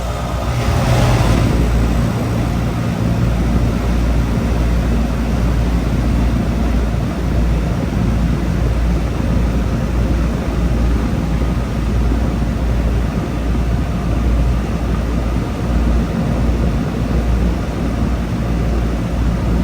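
Bard 5-ton wall-mounted heat pump running in cooling mode just after start-up: the compressor hums low under a steady rush of air from the condenser fan. A louder surge of rushing air comes in the first second or two as it settles to speed.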